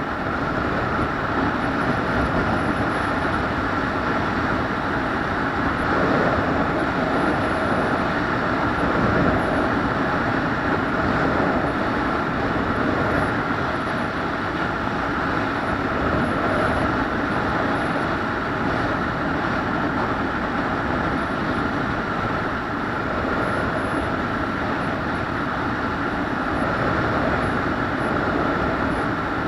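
Steady running noise of a moving vehicle: an even rumble with a faint constant tone, with no breaks or changes.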